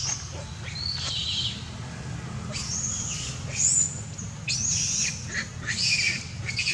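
Baby macaque giving about six short, high-pitched screams in quick succession, each with a falling pitch, the later ones louder.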